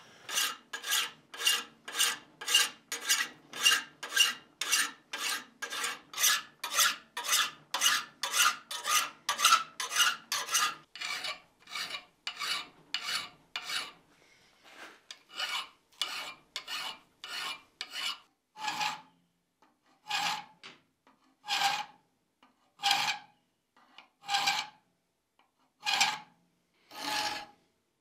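Hand file rasping on a forged steel shoehorn handle clamped in a vise, filing the octagonal taper smooth. Quick, even strokes at about two or three a second for the first ten seconds or so, a short pause around the middle, then slower single strokes about one a second.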